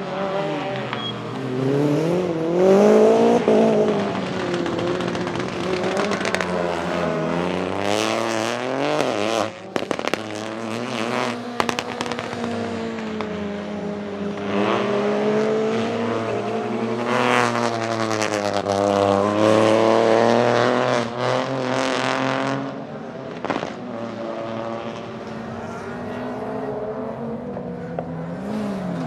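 Peugeot 208 Rally4's 1.2-litre turbocharged three-cylinder engine driven hard, revving up and falling back again and again through the gears. Crackles and pops from the exhaust come on the overrun, in clusters about a third of the way in and again past the middle.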